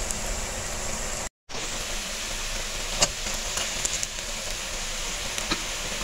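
Pakoras frying in hot oil in a wok: a steady sizzling hiss with a few small pops. The sound cuts out for a moment about a second in.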